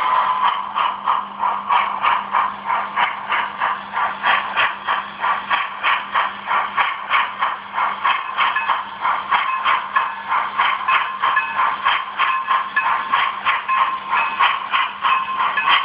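HO-scale steam switcher's DCC sound decoder playing a rhythmic steam exhaust chuff, about three chuffs a second, over a steady hiss, through the model's small speaker.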